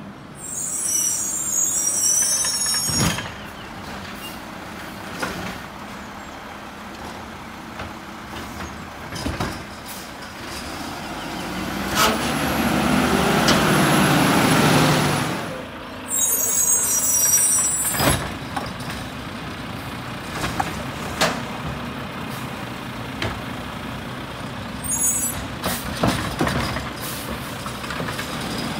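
Mack LR garbage truck's diesel engine running with air brakes hissing in several bursts. The engine swells louder for a few seconds about halfway through, and sharp knocks sound now and then.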